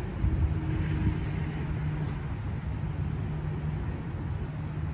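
City street traffic: a steady low engine hum from a motor vehicle over a general traffic rumble.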